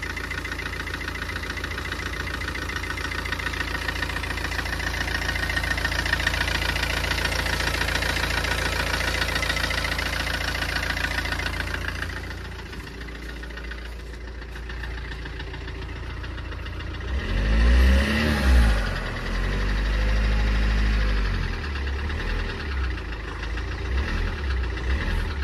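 Tata Safari Storme's 2.2-litre diesel engine running with an abnormal knocking noise, revved up and back down twice about two-thirds of the way through. The knock is piston slap from a seized piston that has worn the cylinder bore oval.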